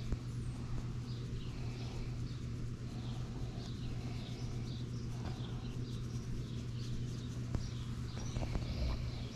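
Small birds chirping over and over over a steady low hum, with a few faint clicks near the end.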